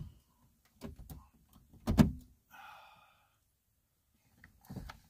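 Knocks and clicks from a car door being handled and opened, with one loud thud about two seconds in.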